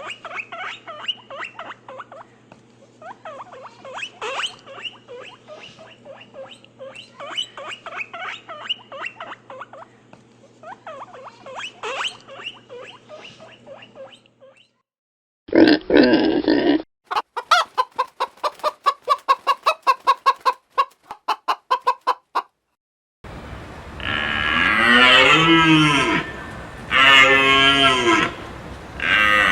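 A run of farm animal calls, one after another: hens clucking for about fourteen seconds, then a short loud call, then a fast train of evenly spaced pulses for about five seconds, then cattle mooing in long calls near the end.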